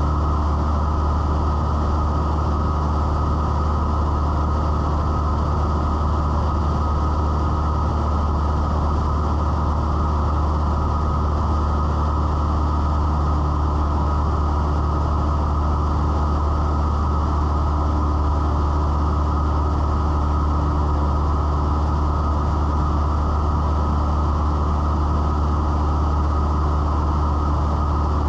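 Cessna 172's piston engine and propeller droning steadily in flight, heard inside the cockpit as a constant low hum.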